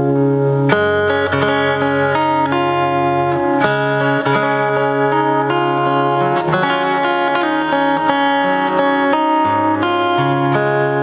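Overdrive F-41C 41-inch acoustic-electric guitar played fingerstyle through an acoustic amplifier: a melody of plucked, ringing notes over bass notes that change every second or two.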